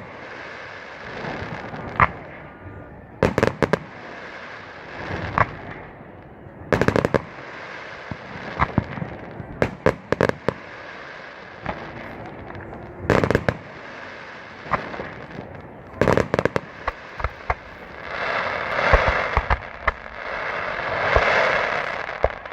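Fireworks going off: sharp bangs and quick strings of pops scattered throughout, then two longer crackling swells near the end.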